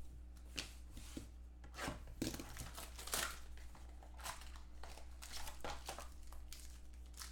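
Plastic wrapping on a pack of football trading cards crinkling and tearing as it is opened by hand, in a run of short crackly rustles, over a steady low electrical hum.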